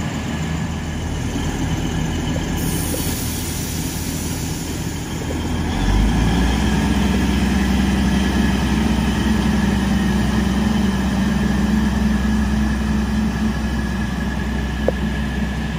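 Hunter-class diesel railcar (2700 class) running at the platform, a steady engine drone that steps up louder and deeper about six seconds in and then holds.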